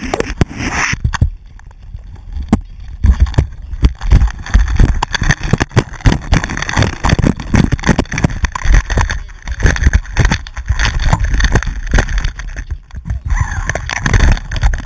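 Hands grabbing and fumbling a GoPro camera hanging on a fishing line, heard as a dense, irregular run of loud knocks, bumps and rubbing right on the camera.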